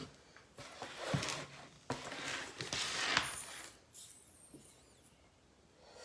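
Close-up eating and food-handling noises: irregular crinkling, rustling and clicking for about three seconds, dying down about four seconds in.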